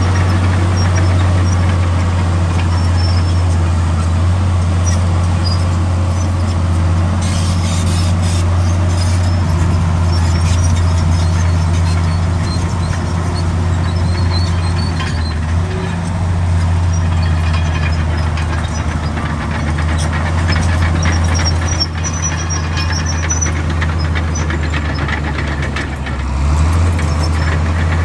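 Heavy diesel engine of earthmoving machinery running steadily with a low drone, with scattered metallic squeaks and clicks over it.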